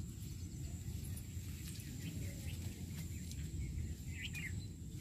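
Rural field ambience: a steady high insect drone over a low rumbling noise, with a few short bird chirps about four seconds in.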